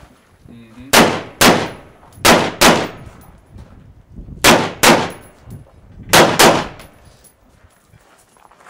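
AR-style rifle fired eight times as four quick pairs of shots, each pair less than half a second apart and the pairs a second or two apart, each shot trailing off briefly.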